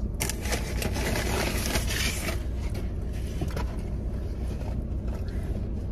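A paper food bag rustling and crinkling for about two seconds near the start, then a few lighter rustles and ticks, over a steady low rumble inside the parked car's cabin.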